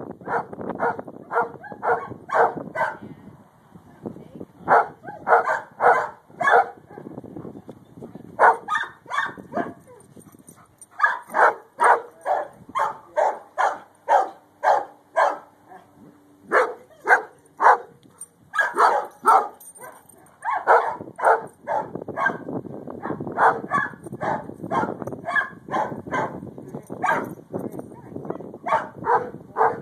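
A dog barking over and over in quick strings of several barks, about three a second, with short pauses between strings.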